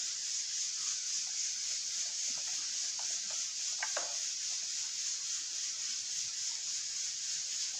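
Steady low hiss with a few faint, soft taps about three and four seconds in, as chopped onion is sprinkled onto chicken breasts sitting in broth in a metal tray.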